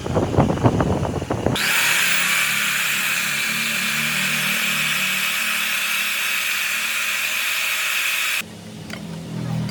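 Clattering knocks for about a second and a half. Then a power tool starts suddenly, runs steadily with a high hiss-like whine for about seven seconds, and cuts off suddenly.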